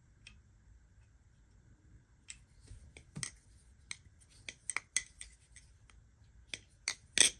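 Marcolo Comet balisong with G10 handles being flipped: an irregular run of sharp metallic clicks and clacks as the handles swing around the blade, starting about two seconds in, the loudest near the end.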